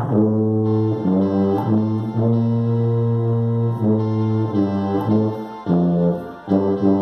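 Tuba playing the soprano line of a hymn: a slow melody of held notes changing every half second to a second, with a brief break for breath a little after six seconds in.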